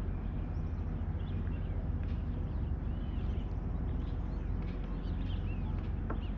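Steady low rumble of wind and water around a kayak at sea, with faint, short, high bird chirps scattered through it.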